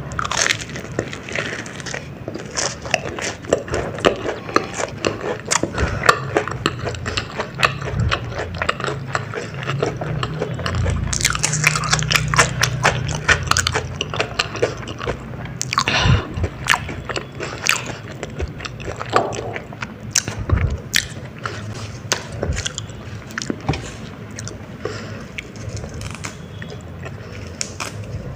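Close-miked crunchy biting and chewing of a batter-fried baby corn dog, with many irregular crackles and a few louder bites.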